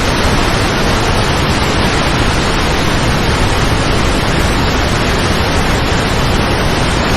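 Large river waterfall: a loud, steady rush of falling water.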